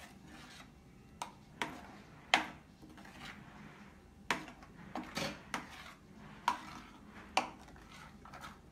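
Spoon clinking and scraping against the pan while thick gravy is stirred: short, sharp knocks at uneven intervals, roughly one a second, the sharpest about two and a half seconds in.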